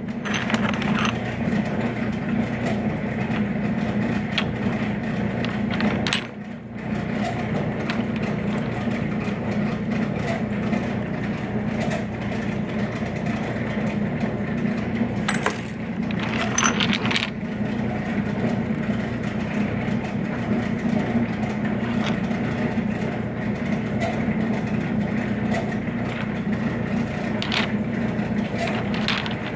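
Pieces of petrified wood clinking and clacking against each other in a pile as they are handled, a few sharp knocks scattered through, over a steady low background hum.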